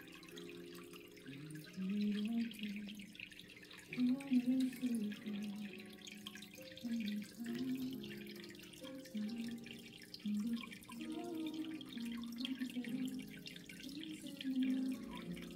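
Aquarium water trickling and dripping steadily, with low held tones underneath that shift in pitch every half second or so.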